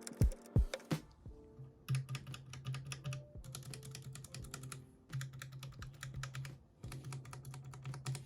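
Mechanical keyboard with Akko Ocean Blue clicky switches being typed on in four quick runs of keystrokes with short pauses between them, over soft background music.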